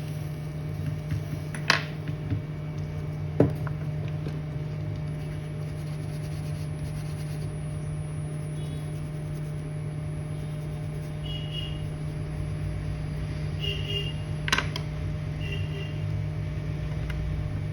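Steady low hum of workbench equipment, with a few sharp clicks and taps of small tools on a laptop motherboard and some short faint high chirps near the end.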